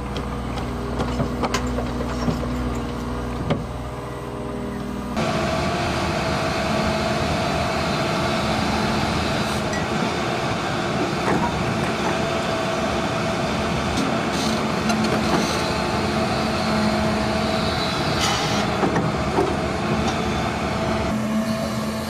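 Heavy diesel earthmoving machinery, a John Deere excavator and articulated dump trucks, running steadily at a work site, with scattered clicks and knocks. About five seconds in, the sound changes abruptly to a louder, fuller engine sound, as at a cut to a closer machine.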